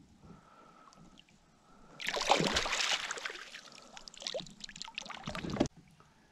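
Water splashing as a hooked bass is scooped up in a landing net beside a kayak and lifted out, water streaming off the net. It starts suddenly about two seconds in and stops abruptly near the end.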